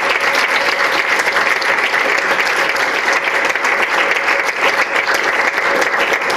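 Audience applauding steadily: many people clapping at once, dense and even.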